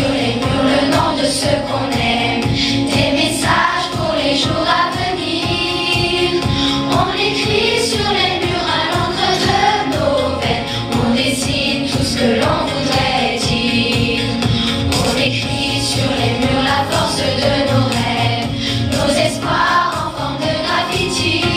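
Children's choir of fourth-grade pupils singing a song together, over a musical accompaniment with a steady beat.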